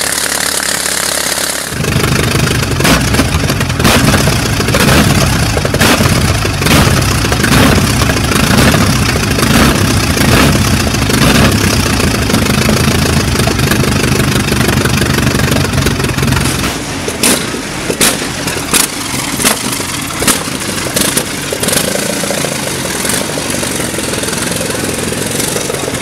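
Darracq 200 land speed record car's 25-litre V8 catching about two seconds in and running loud through its open exhaust stubs. From about seventeen seconds it drops and is broken by a string of sharp cracks.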